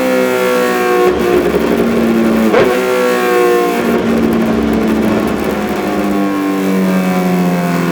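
Suzuki GSX-R1000 K3's inline-four engine running loud through a Dominator slip-on exhaust, its pitch sagging gradually and then jumping back up several times.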